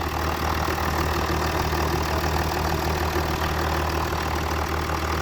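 Jaguar XF S's 3.0-litre twin-turbo V6 diesel (306DT) idling steadily on fresh oil, running smoothly with its oil pressure built up.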